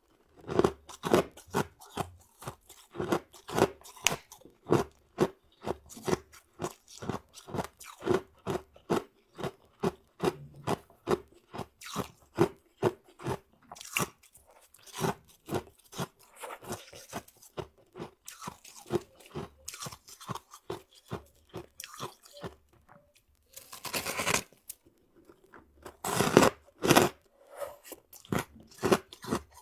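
Close-miked chewing of powdery freezer-frost ice, a quick run of crisp crunches about two to three a second. After a short pause a little past the middle, a few longer, louder crunches follow, like fresh bites.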